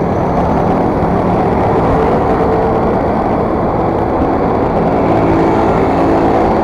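Motor scooter running at a steady cruising speed: steady rush of wind on the microphone over the engine, with a faint steady whine.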